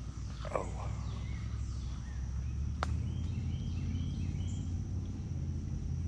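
Outdoor background: a steady low rumble, one sharp click about three seconds in, and a few faint high chirps.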